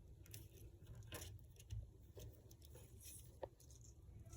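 Near silence with a few faint, short taps and rustles from leaves and flowers being laid and pressed onto glue-coated paper.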